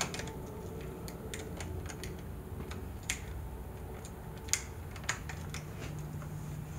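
Small irregular clicks and ticks from handling a wall switch and working stripped wire ends onto its screw terminals, the loudest a little after three seconds and about four and a half seconds in, over a low steady hum.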